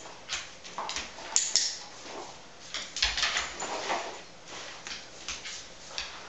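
Cardboard egg cartons scraping and bumping on a vinyl floor as a dog noses and paws them and they are pushed about: an irregular run of short scrapes and knocks.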